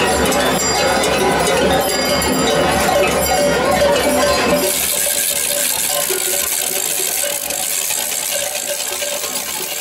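Many cowbells clanking and jingling together, the noise of costumed carnival dancers on the move. About halfway through it changes abruptly to a thinner, hissier jingle.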